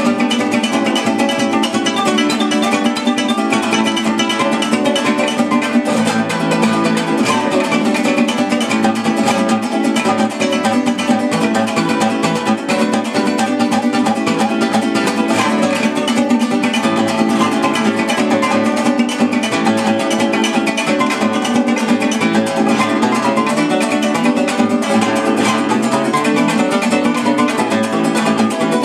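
Bandola llanera of flor amarillo (puy) wood and a laurel-wood cuatro llanero playing together, a seis in joropo oriental style: a fast run of plucked notes over steady strumming, without pause.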